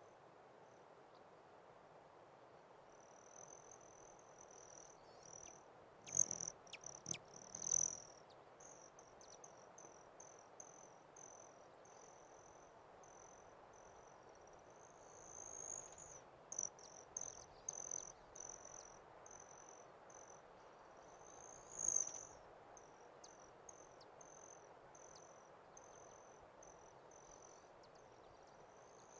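Faint, rapid, high-pitched chirping in a long uneven series, starting a few seconds in, with a few louder rising notes along the way. A few sharp clicks come in among the early chirps, over a faint steady outdoor hiss.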